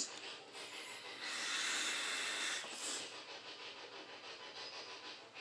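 A soft hiss lasting about a second and a half, then a shorter one, like a breath out or something rubbing close to the microphone, over faint background noise.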